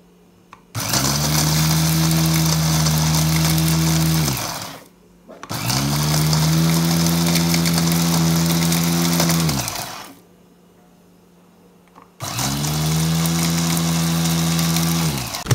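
Small electric food chopper grinding toasted bread into breadcrumbs, switched on three times for about three to four seconds each; the motor whine rises as it spins up and falls away as it stops each time.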